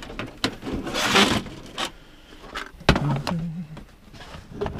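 Hand tools being handled and sorted: scattered clinks and knocks, a rustling scrape about a second in, and a sharp knock about three seconds in.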